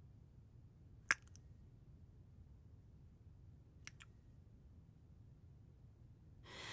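Close-miked kiss sounds: short lip smacks, a quick cluster about a second in and another about four seconds in, over quiet room tone, with a soft intake of breath near the end.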